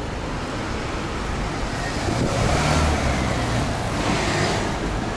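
Road traffic: a motor vehicle passes by, its engine rumble and tyre noise swelling to loudest about halfway through, then easing off.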